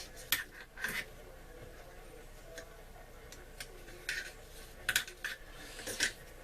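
Scattered light clicks and taps of AR-15 metal parts being handled, about six sharp ticks spread over several seconds.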